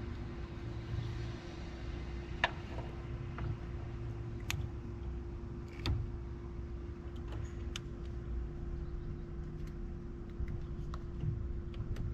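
Steady low machine hum with a constant tone running through it, broken by a few scattered sharp clicks and taps.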